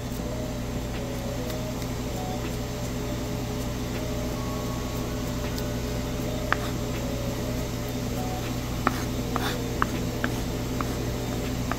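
Chef's knife mincing garlic on a wooden cutting board, mostly quiet rocking with a few sharp taps of the blade on the board, one past the middle and several near the end, over a steady low hum.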